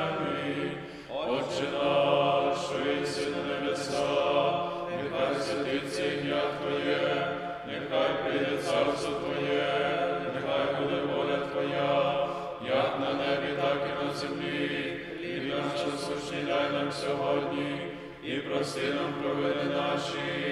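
Men's voices singing unaccompanied Byzantine-rite liturgical chant from the Panakhyda memorial service, in sustained phrases with short breaks between them.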